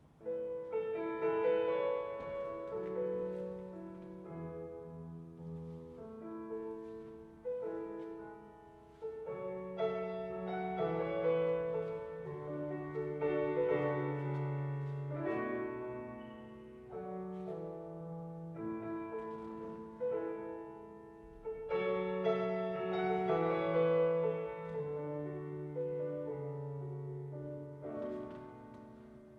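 Solo piano music for a ballet barre exercise: a melody over held bass notes, played in short phrases.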